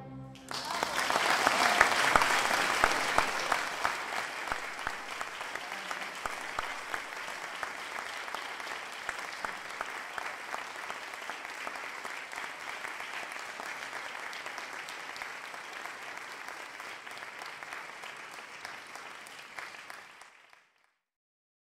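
Concert audience applauding an orchestra, loudest in the first few seconds, then settling into steadier, thinner clapping that ends about twenty seconds in.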